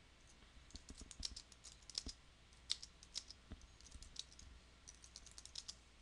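Faint typing on a computer keyboard: quick, irregular runs of keystroke clicks.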